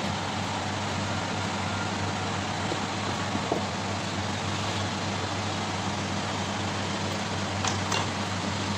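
Steady hum and rushing hiss of kitchen ventilation, with a few faint clicks and knocks of knife and board work, about halfway through and again near the end.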